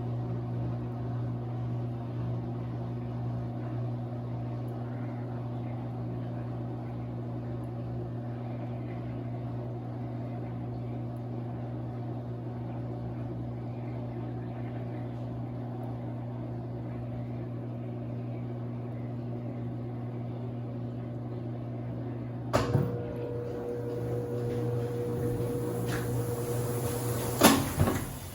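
Consul 8 kg CWC08 washing machine running with a steady electrical hum. About 22 seconds in a click sounds and a higher steady tone joins the hum. Near the end a louder click comes and the hum stops.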